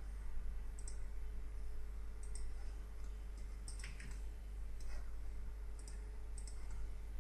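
Computer mouse buttons clicking at irregular intervals, often in quick press-and-release pairs, over a steady low hum.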